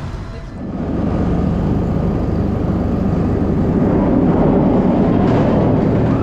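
Nemesis roller coaster running: a loud, steady rushing rumble that swells up about a second in.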